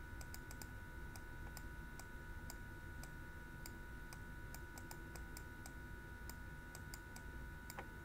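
Faint, irregular clicking from writing by hand on a computer, several clicks a second, over a faint steady electronic whine.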